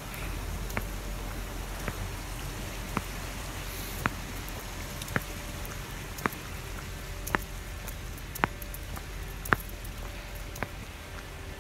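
Slow footsteps, one sharp step about every second, over a steady hiss and faint hum.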